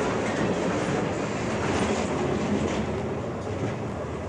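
Freight cars of a CSX train rolling directly over the listener, heard from between the rails under the train: steel wheels and trucks running on the rails in a steady, continuous noise.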